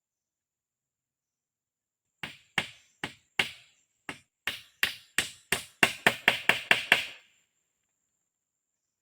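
A series of about fifteen sharp blows of a tool striking wood, like chopping or hammering. They start about two seconds in, quicken toward the end and stop abruptly.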